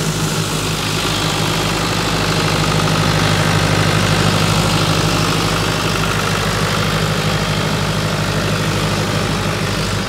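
Old John Deere 2250 tractor running steadily, driving a red straw blower, with the blower's rushing of chopped straw over the engine.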